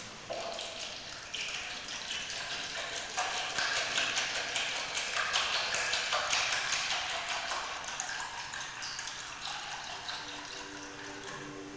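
Liquid trickling and gurgling as electrolyte is poured into a lead-acid battery being restored. The pouring grows louder a few seconds in and fades toward the end, when a faint steady hum comes in.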